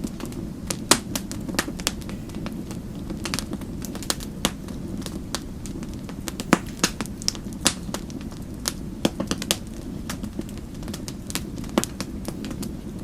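Wood fire crackling in a fireplace: a steady low rumble of flames under many irregular sharp crackles, with a few louder pops among them.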